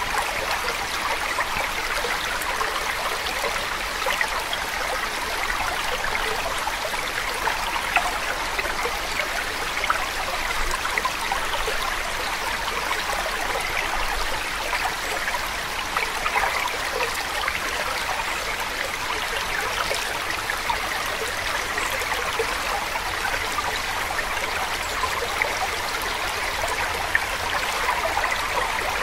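Steady sound of running water, like a flowing stream.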